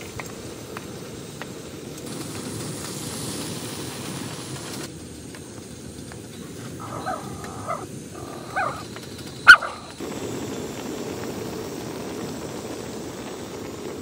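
A small dog barks a few times in the second half, short yaps with one much louder sharp bark near the end. Underneath runs a steady low rushing noise, with faint ticks of a wooden spatula on the griddle.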